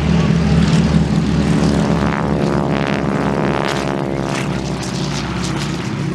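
Propeller aircraft engine droning as the plane flies past, its tone shifting as it goes by around the middle.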